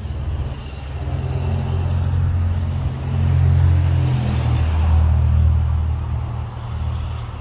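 A motor vehicle's engine running close by: a low, steady drone that grows louder about three seconds in, drops slightly in pitch, and eases off near the end.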